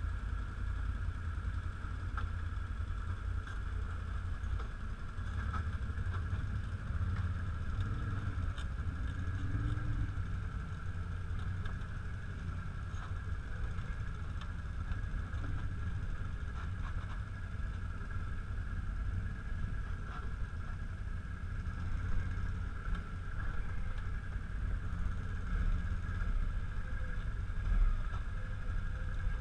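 Can-Am 1000 XT ATV's V-twin engine running at low speed, a steady low rumble, as the quad crawls down a rutted mud trail.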